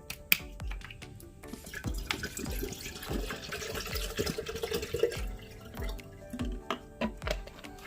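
Background music with a steady beat, with water running from a tap for a few seconds in the middle.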